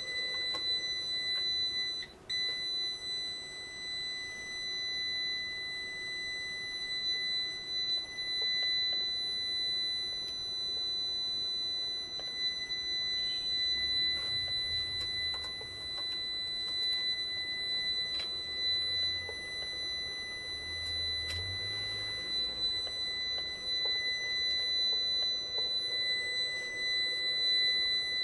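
Continuous high-pitched electronic buzzer tone, steady in pitch, breaking off briefly about two seconds in and then carrying on unbroken.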